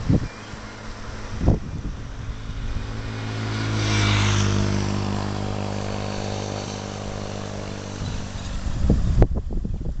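A motor vehicle engine running at a steady pitch, growing louder to a peak about four seconds in and then slowly fading, like a vehicle passing by. Low thumps near the start, about a second and a half in, and over the last second.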